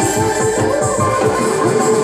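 Live Santali stage music from a band with keyboard and drums, playing with a steady beat.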